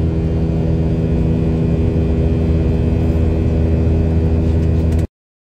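Jet airliner cabin noise: the engines' steady low drone with rushing air, heard from a window seat. It cuts off suddenly about five seconds in.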